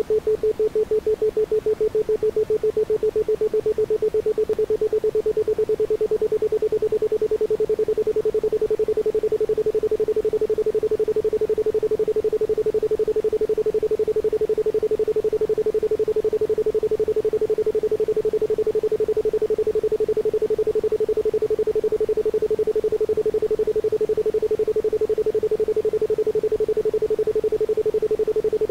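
Isochronic tone: a single steady 432 Hz pure tone switched rapidly on and off in even pulses, with no music or other sound under it.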